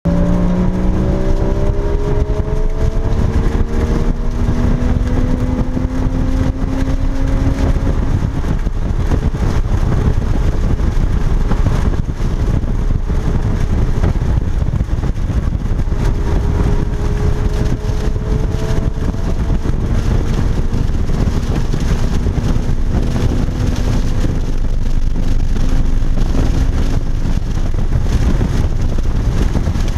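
Porsche Cayman GTS's 3.4-litre flat-six heard from inside the cabin, pulling up through the revs over the first several seconds and rising twice more later, under heavy tyre and road noise on a damp track.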